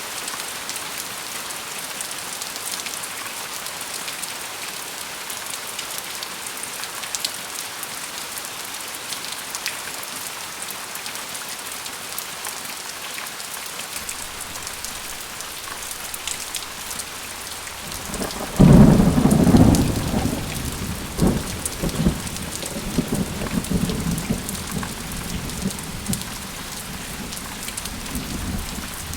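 Steady rain falling, with scattered sharp drop ticks. About two-thirds of the way through, a clap of thunder breaks in suddenly and is loudest for a second or two, then rolls on as a lower rumble for several seconds.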